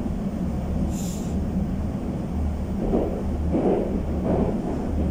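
Cabin noise of a Moscow Metro 81-775/776/777 train running through a tunnel: a steady low rumble of wheels on rail, with a brief hiss about a second in and a few louder surges near the end.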